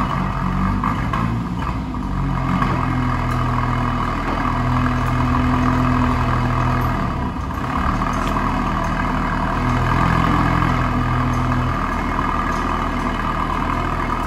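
Tofaş car engine running, its note stepping up and down in pitch a few times.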